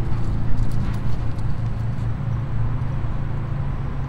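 Wind rumbling on the microphone, with footsteps on dry leaves and pine needles.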